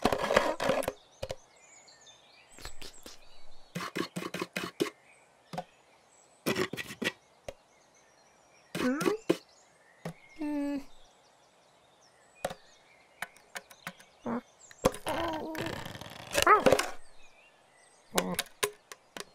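Cartoon sound effects: clusters of quick taps and knocks, with a few short voiced cat grunts and murmurs in between, the longest coming about two thirds of the way through.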